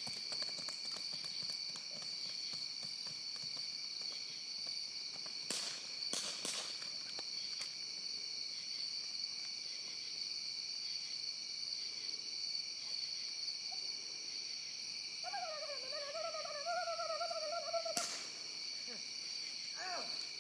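Steady high-pitched night insect chorus, broken by sharp cracks of BB guns firing: two close together about five to six seconds in and one near the end. Just before that last crack, a wavering hoot-like cry lasts about three seconds.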